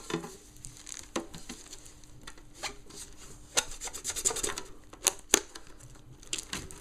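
The edge of a metal tin lid scraping and rubbing at the plastic shrink-wrap on a sealed tin to cut it open: irregular scratching with scattered sharp clicks, the two loudest about five seconds in.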